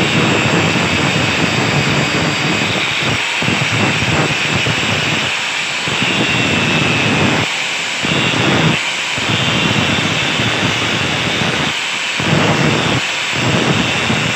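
Handheld angle grinder running and grinding steel, its disc working away the old pipe welded into an axe head's eye. A steady high whine rides over loud rasping noise, which dips briefly several times.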